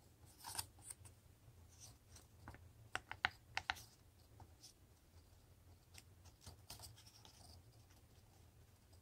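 Faint rustling and crinkling of a folded construction-paper strip being handled and glued with a glue stick, with a quick cluster of sharp clicks and crackles about three seconds in, over a low steady hum.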